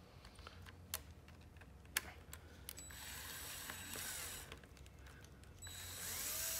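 A hand tool, most likely a ratchet, working the negative terminal bolt on a motorcycle battery. Scattered clicks of metal, then two stretches of rapid ratchet clicking, about three seconds in and again near the end.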